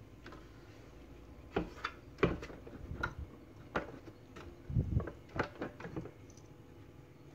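Hard plastic and metal clicks and knocks from a tabletop wet grinder as its stone-roller arm is swung over the steel drum and fitted into place, a dozen or so irregular knocks with a heavier thump about five seconds in. The motor is not running.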